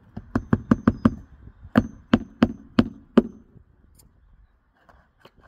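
Hammer striking metal under a lifted asphalt shingle tab: a quick run of about six blows, a short pause, five more, then one last blow near the end. Several blows leave a short high metallic ring.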